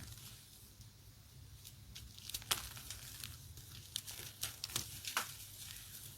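Pressed gym chalk circles being crushed, crumbling with irregular sharp crunches and crackles. The loudest crunches come about two and a half seconds in and again a little after five seconds.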